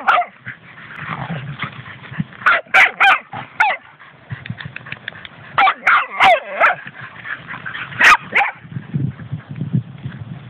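Finnish Lapphunds barking and yipping in play, in quick clusters of three or four calls, the barking stopping about two seconds before the end.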